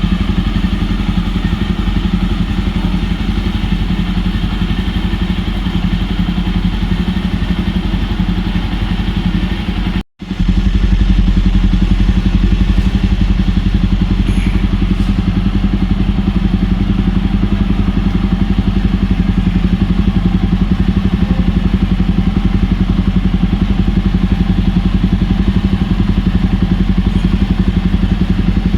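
Jawa bobber motorcycle's single-cylinder engine idling steadily through its dual exhausts, an even rapid pulsing with no revving. The sound cuts out for an instant about ten seconds in, then carries on slightly louder.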